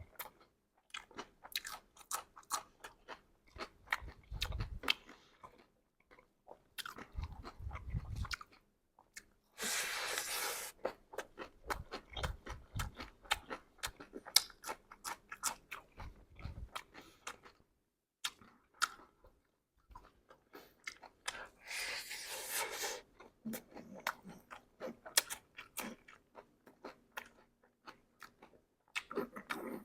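A person chewing and crunching mouthfuls of chatpate, the puffed rice and sev giving a dense run of crisp crunches, with two louder noisy stretches of about a second each, around ten seconds in and past twenty seconds.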